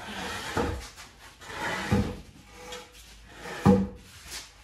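Wooden boards knocking and scraping as they are pulled out from under a raised truck frame, with three knocks, the last the loudest.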